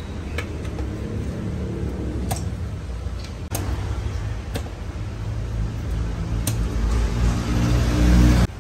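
Cleaver chopping raw chicken on a wooden chopping board: about five sharp knocks a second or two apart, over a steady low rumble that grows louder and cuts off suddenly near the end.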